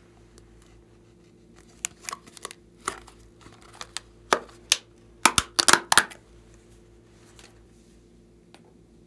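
Small plastic packet being torn open by hand, its wrapper crinkling: a run of sharp crackles and rips, loudest and densest about five to six seconds in.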